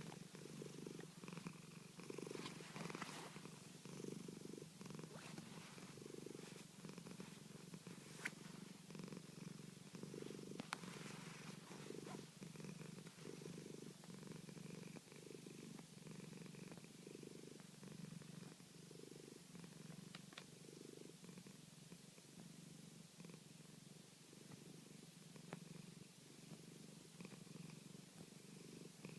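Domestic cat purring steadily while being massaged, the purr swelling and fading with each breath in an even rhythm. A few faint clicks are heard along the way.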